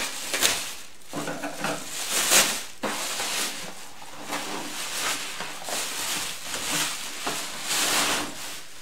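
Plastic shipping bag crinkling and rustling in irregular crackles as it is cut open with scissors and pulled off a shoebox.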